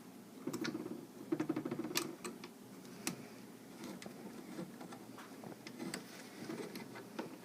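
Allen wrench working a screw loose from a rifle's buttstock: short scraping rasps and sharp metal clicks in the first two seconds, then sparse light ticks.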